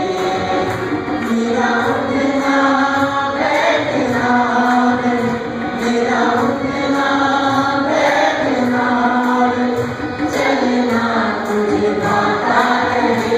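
Small church choir singing an Urdu Christian song through microphones, in held phrases that restart about every two seconds.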